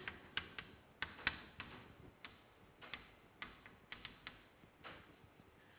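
Chalk writing on a blackboard: a run of irregular sharp taps and clicks of the chalk against the board, about two a second.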